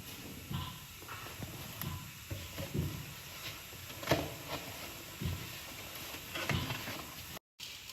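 Irregular soft knocks and clatter, about one every half second, over a faint steady hiss: kitchen utensils being handled.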